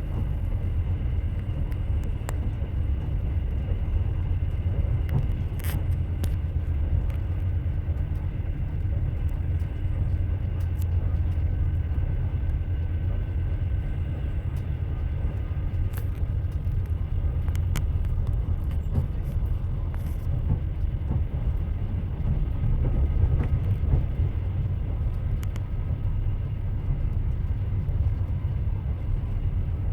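Train running on the rails: a steady low rumble of the wheels, with a few scattered sharp clicks.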